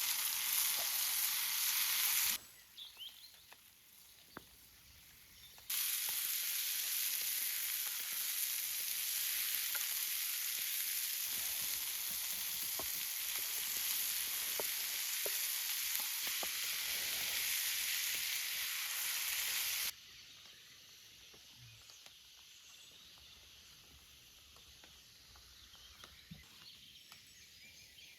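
Food sizzling in a frying pan, a steady hiss in two stretches that start and stop abruptly, the longer one lasting about fourteen seconds; between and after them, a much quieter outdoor background with faint scattered ticks.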